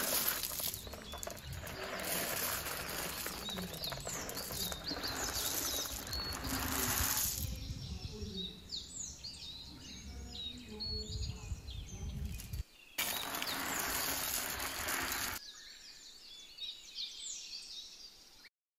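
Outdoor ambience: a steady rushing noise with small birds chirping and twittering throughout. The background changes abruptly several times and cuts off just before the end.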